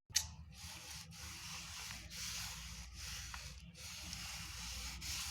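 A sharp click, then paper rubbing and sliding against paper in a steady scraping hiss with a few short breaks, as card stock is handled and pressed down.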